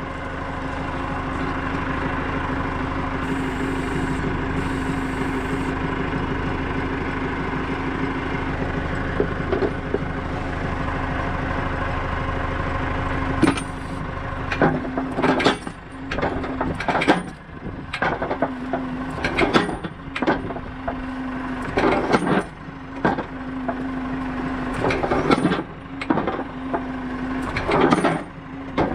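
Massey Ferguson 375 tractor's diesel engine running steadily to power a tractor-mounted post banger. From about halfway through, the post driver's hammer strikes a wooden fence post over and over, roughly once a second, driving it into the ground, with the engine note dipping around each blow.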